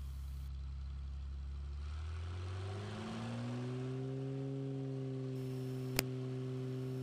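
Piper Cherokee Six's six-cylinder Lycoming engine and propeller going up to full takeoff power: a steady hum that rises in pitch a couple of seconds in, then holds steady at full power. A single sharp click comes about six seconds in.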